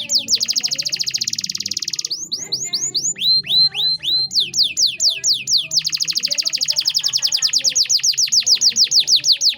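Male canary singing a long song of quick, repeated downward-sweeping whistled notes broken up by very fast rolling trills, ending abruptly near the end.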